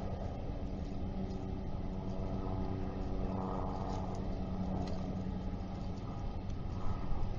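Steady low hum of an idling engine, with an even drone under a rumble.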